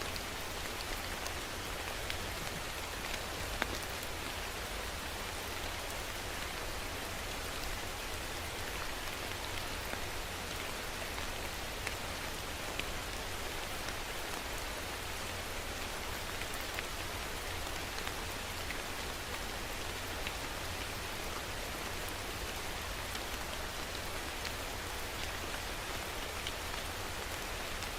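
Steady rain falling, an even hiss with many individual drops tapping on a surface.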